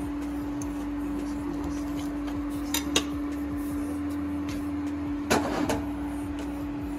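Steel kitchen tongs and utensils clicking and clinking: two sharp clicks near the middle, then a quick cluster about five seconds in. Under them runs a steady machine hum.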